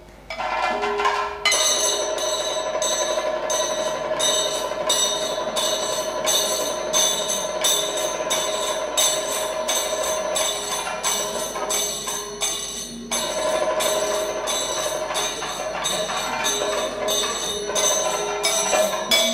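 Kathakali music: a singer holding long notes over a steady beat of small bell-metal hand cymbals (ilathalam), about two strokes a second, with a short break in the singing about two-thirds of the way through.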